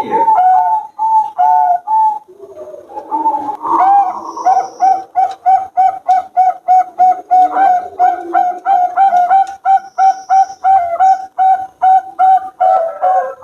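Zebra doves (Bangkok-line perkutut) cooing: a fast string of short, even coo notes, about three a second, with a brief pause about two seconds in.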